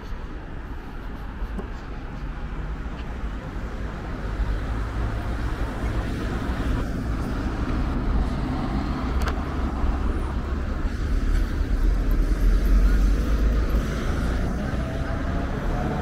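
Road traffic on a city street: a steady rumble of cars and vans driving past, building up to a louder pass about three quarters of the way through, then easing.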